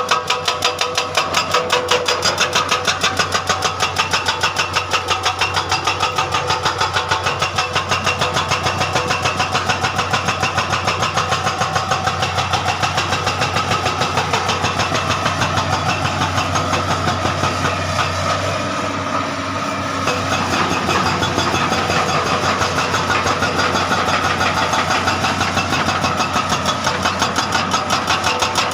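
Hydraulic excavator's diesel engine running steadily with an even, rapid pulse; it dips briefly and changes tone about two-thirds of the way through, then carries on.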